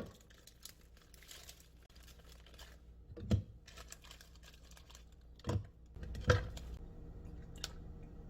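Rustling and crinkling from handling, with three sharp knocks about three, five and a half, and six seconds in, over a faint low steady hum.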